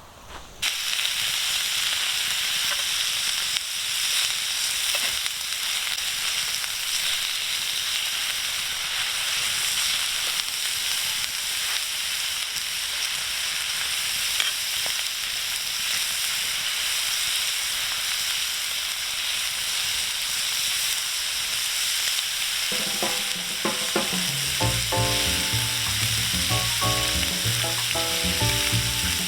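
Food frying in a hot pan with a steady sizzle that starts abruptly just under a second in. Background music comes in over it near the end.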